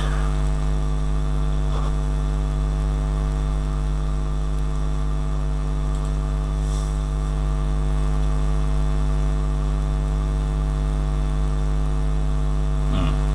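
Steady, loud electrical mains hum with a dense stack of overtones, picked up by the recording, with a couple of faint clicks.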